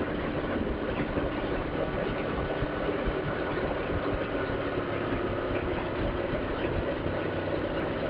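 Suzuki GS500E parallel-twin engine running steadily at a road cruise, under a constant rush of wind and road noise on a helmet-mounted microphone.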